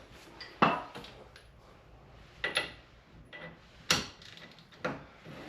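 Metal parts and hand tools clinking and knocking together: four separate sharp knocks, the loudest about half a second in.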